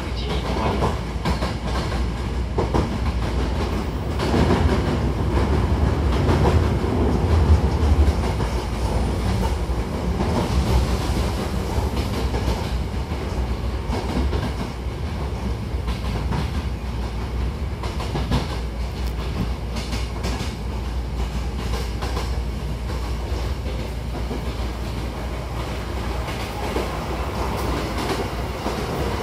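Hankyu 1000-series electric commuter train running, heard from inside the car by the doors: a steady rumble of wheels on the track, loudest about four to eight seconds in.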